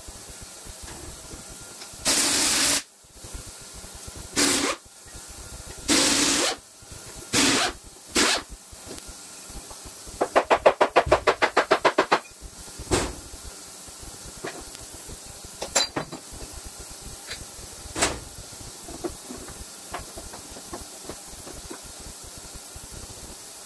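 Several short bursts of compressed-air hiss, then a rapid run of about a dozen sharp metallic knocks lasting about two seconds, followed by a few scattered metal clinks as a gear and shaft assembly is worked out of a diesel engine block.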